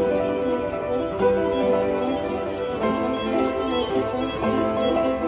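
Background music with a string melody.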